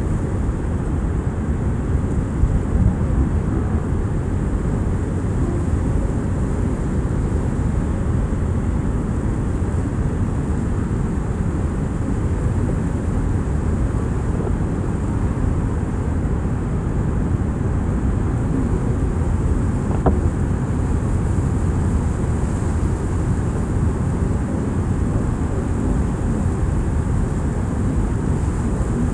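Steady, deep rush of Niagara's Horseshoe Falls and the rapids at its brink, an unbroken wall of water noise heaviest in the low end.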